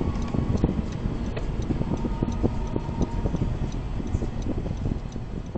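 Car cabin road and engine noise while driving at freeway speed, with a regular ticking over it from the turn signal during a lane change.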